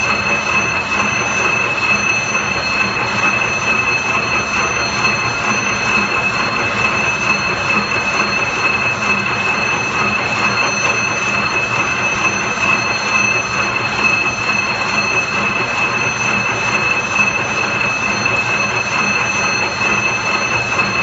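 CS-C automatic barbed wire making machine running: a steady mechanical clatter with a constant high-pitched whine.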